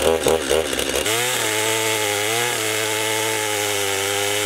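Stihl MS 250 two-stroke chainsaw with a freshly hand-filed chain, cutting into a log at full throttle. Its pitch wavers under load for about the first second, then holds steady and high, with a brief dip about halfway through.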